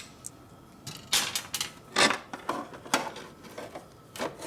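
Metal clinks and scrapes of hand work: parts and tools being handled, with a few sharp knocks about one, two and three seconds in and again near the end.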